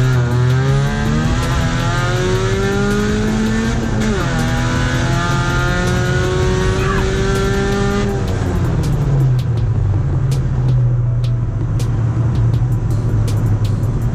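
Competition car engine accelerating hard through the gears: its pitch climbs, drops at a gear change about four seconds in, climbs again, and fades out around eight seconds in.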